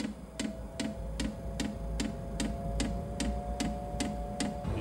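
Hcalory diesel heater's fuel pump ticking evenly, about two and a half clicks a second, as it draws diesel through the fuel line during start-up, over a steady hum.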